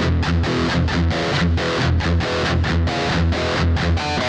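Outro music: a distorted electric guitar playing a fast riff of short, chugging low notes, about five a second, that gives way near the end to a held chord.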